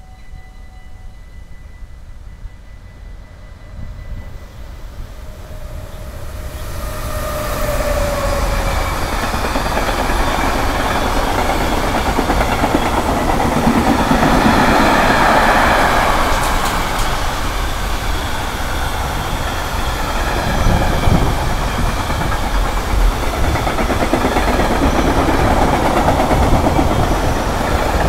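Container freight train hauled by a Siemens Vectron locomotive passing close by: the rumble builds from about six seconds in, then the container wagons' wheels keep up a steady rumble and clatter on the rails.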